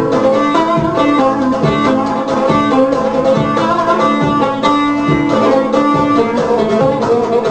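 A twelve-string plucked instrument playing a quick picked melody in a Turkish folk style, over a few steady held tones.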